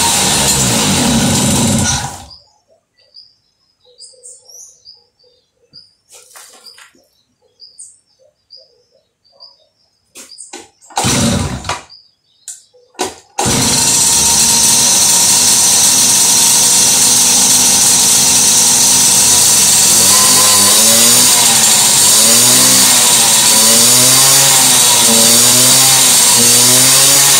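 Small two-stroke moped engine: after a loud sound cuts off about two seconds in, there is a quiet stretch with faint bird chirps, then a few short bursts as the engine is started, and it catches about halfway through and runs loudly, revved up and down over and over in the second half. Its carburettor is one the owner calls in bad shape and due for replacement.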